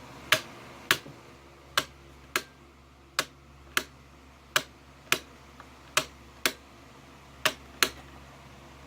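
Wall light switch being flicked on and off over and over, about a dozen sharp clicks at a steady pace of a little over one a second.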